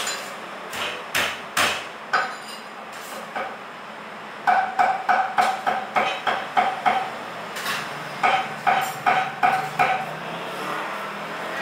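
Cleaver chopping on a chopping block: sharp strikes with a ringing metallic note, first a few scattered blows, then two quick runs of about four strikes a second.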